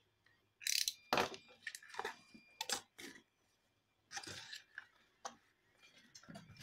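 Cardboard pieces and a steel ruler being handled on a cutting mat, a run of short scrapes and crunching rustles. There are three clusters: from about half a second in to three seconds, again around four to five seconds, and near the end.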